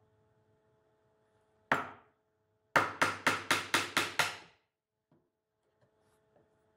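A bench chisel being driven by hammer blows into the end grain at the baseline of a joint socket, chopping out waste wood. One sharp strike comes first, then about a second later a run of seven quick strikes, about four or five a second.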